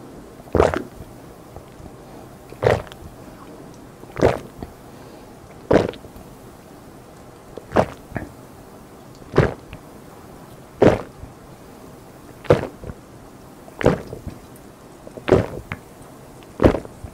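A person gulping carbonated Kin Cider lemon-lime soda straight from a 500 ml plastic bottle in one long chug. Each swallow is a loud gulp, about one every one and a half seconds, eleven in all.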